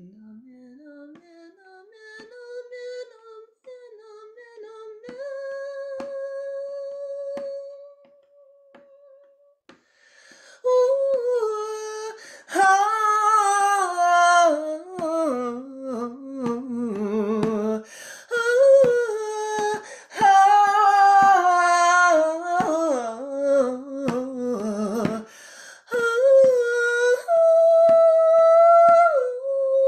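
A woman's solo voice singing a chant unaccompanied: soft and hummed at first, slowly rising in pitch, then from about ten seconds in much louder, with sliding, ornamented runs and vibrato.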